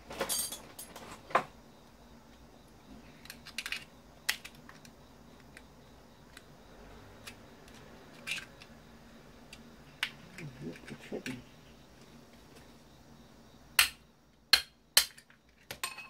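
Scattered clicks and clinks of a metal rod and small plastic and metal parts being handled while a vacuum cleaner is taken apart. Near the end come three sharp clinks about half a second apart.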